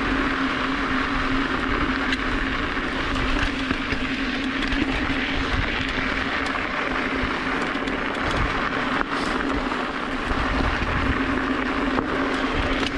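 Full-suspension mountain bike rolling fast along a dirt trail at about 12 mph: a steady rush of tyre noise and wind on the helmet camera's microphone, with a steady low hum and scattered rattles and knocks from the bike over the rough ground.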